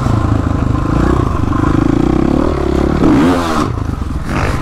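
Dirt bike engine running under throttle close to the microphone, with the pitch climbing and then dropping about three seconds in as the rider works the throttle.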